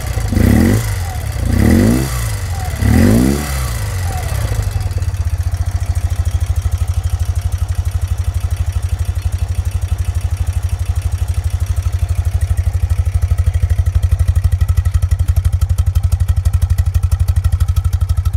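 1980 BMW R80/7's air-cooled flat-twin boxer engine revved with three quick throttle blips in the first few seconds, then settling into a steady, even idle.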